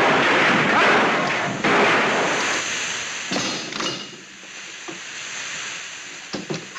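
Steam clothes press hissing loudly as it blows off steam; the hiss fades away after about three seconds. A few knocks from the press's handles and lid come near the middle and near the end.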